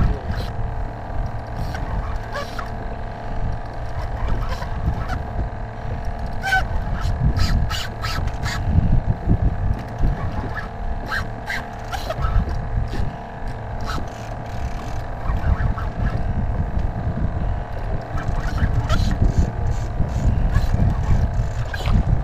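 A steady motor hum made of several even tones, with a low rumble of wind on the microphone and scattered light clicks.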